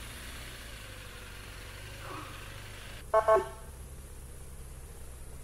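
Vehicle horn tooting twice in quick succession, over the steady low hum of a running engine.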